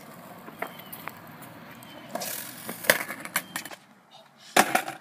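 Skateboard on concrete: wheels rolling, with several sharp clacks of the board striking the ground, the loudest about three seconds in. A short, loud noise of some other kind comes near the end.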